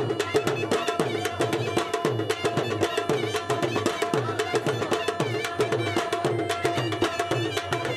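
Traditional folk dance music: fast, dense drumming, its low strokes dropping in pitch, with a steady melody line over it.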